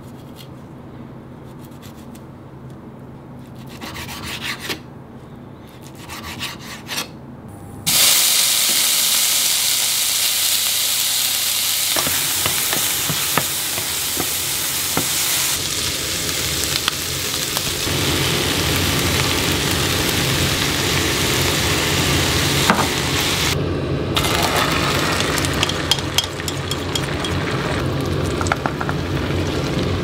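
A knife cuts through broccoli on a wooden chopping board with a few short knocks. About eight seconds in, loud frying starts at once: vegetables sizzling in a hot pan while a wooden spatula stirs and scrapes, first shredded cabbage and then a pepper-and-egg omelette.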